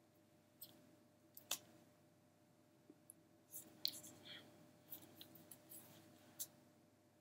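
Near silence with scattered faint clicks and soft hisses: mouth noises and breaths of a person signing without voice, and hands brushing against a fleece jacket.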